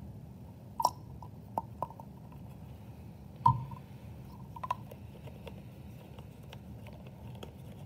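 Steady low room hum with a few light clicks and one louder knock about three and a half seconds in: small handling noises from working with a plastic pipette and paint containers.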